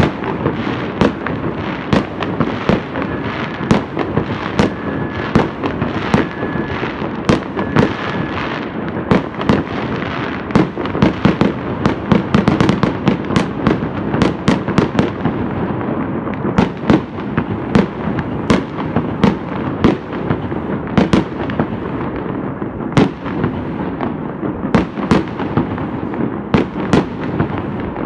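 Many fireworks and firecrackers going off at once across a wide area: an unbroken run of sharp bangs and crackles, several a second, over a steady wash of more distant blasts.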